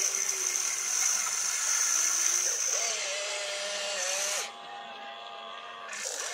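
Electric motors of a toy radio-controlled excavator whining as the boom and arm work. The pitch glides up and down as the machine digs and lifts its loaded bucket, with a hiss over it that drops off sharply about four and a half seconds in, then picks up again near the end.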